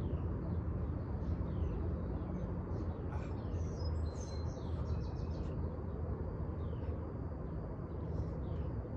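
Birds chirping: short falling chirps about once a second, with a brief run of higher whistled notes about three to five seconds in, over a steady low rumble.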